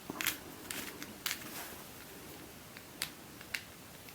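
Rubik's UFO twisty puzzle being twisted by hand to scramble it: irregular sharp plastic clicks as its parts turn and snap into place, several in the first second and a half, then a few sparser ones about three seconds in.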